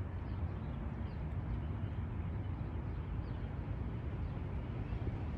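Steady low background rumble with a soft hiss, unchanging throughout.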